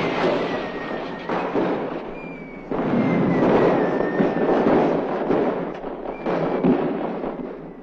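New Year's firecrackers and fireworks crackling and banging in a dense, continuous din, loudest in two long stretches, with faint high whistles running through it.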